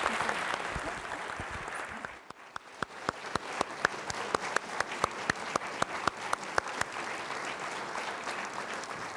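Audience applauding: a dense wash of clapping that thins briefly about two seconds in. Then one clapper's sharper claps stand out at about four a second through the middle.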